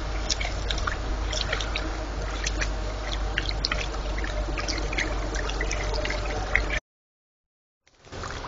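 Water trickling and dripping: many small irregular gurgles over a steady low hum. The sound cuts out for about a second near the end, then returns quieter.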